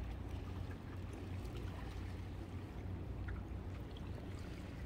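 Seawater washing and splashing against the rocks of a breakwater, stirred up by the wake of a passing boat, over a steady low wind rumble on the microphone.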